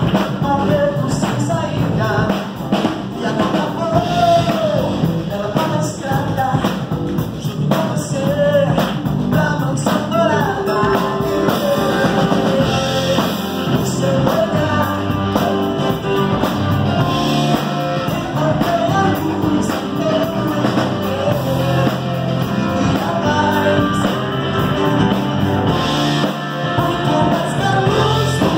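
A live band playing an upbeat gospel song: electric guitar, keyboard, bass guitar and drum kit, with a singer's voice over the instruments.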